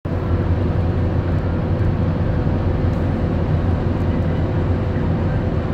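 A car driving, heard from inside the cabin: a steady low rumble of tyres on the road and the engine running, with a faint steady hum.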